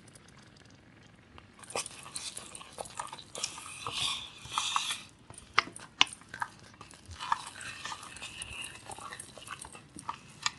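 A wooden spatula stirring and turning thick, oily broken-rice upma in a stainless-steel kadai, with wet squelching and scattered clicks of the spatula against the pan. It starts after a quiet second or so.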